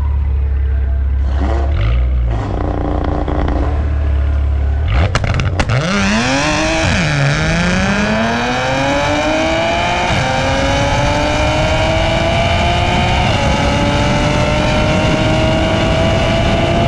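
Supercharged 3.0 V6 of a tuned Audi S4 B8.5 idling, revving briefly, then launching from a standstill with a few sharp cracks and pulling hard through the gears of its DSG. The engine note and supercharger whine climb steadily in pitch, with quick upshifts about ten and thirteen seconds in, over heavy wind rush.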